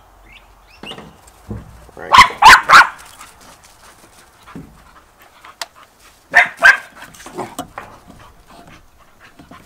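A dog barking: three quick barks about two seconds in, then two more about six and a half seconds in.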